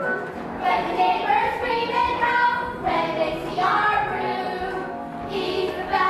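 Children's voices singing a musical-theatre song with instrumental accompaniment.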